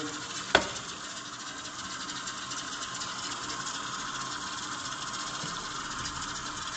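Tap water running steadily onto a hot, freshly brazed stainless steel percolator-lid deflector and into a stainless steel sink, cooling the part. A brief knock comes about half a second in.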